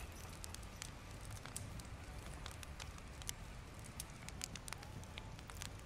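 Faint crackling of a wood campfire: small, irregular pops over a low hiss.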